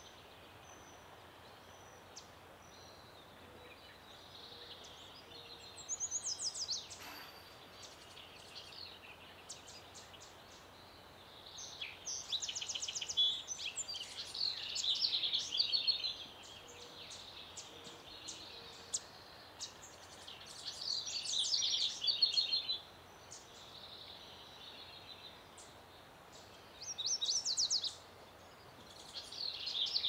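Wild songbirds singing in separate bursts of high, fast trills a few seconds apart, the longest lasting about four seconds, over a faint steady outdoor hiss.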